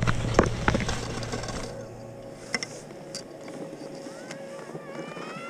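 Skis sliding and scraping over packed snow, with wind rumbling on the camera and sharp clicks, loud for the first two seconds and then quieter. Near the end, a few high calls that rise in pitch.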